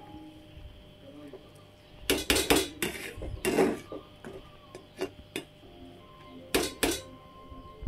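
A metal lid knocking and scraping against the rim of a metal cooking pot as cooked rice is tipped to drain off its starch water. There is a clatter of several knocks about two seconds in, then single clinks, with two more near the end.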